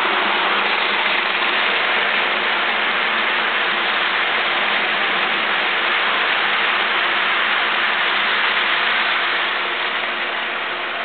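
Model trains running on the layout's track: a steady whirring rattle of small electric motors and wheels rolling on rail, easing slightly near the end.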